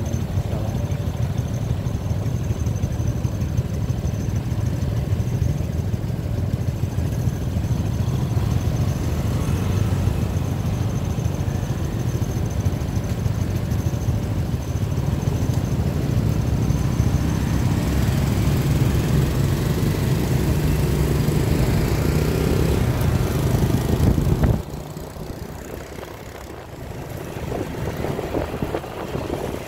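Small motorbike engine running while riding, mixed with wind rumble on the microphone. The level drops suddenly about 24 seconds in and picks up again near the end.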